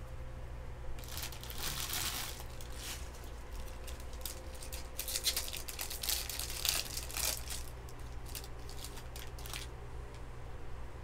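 Baseball trading cards being handled and flicked through, sliding against each other in a stack: dry rustling swishes that come in two longer spells, with light card clicks between, over a steady low hum.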